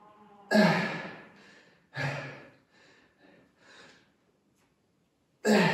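A person breathing hard from exertion: three loud, forceful exhales, about half a second in, about two seconds in and near the end, each tailing off over about a second, with a few faint breaths between.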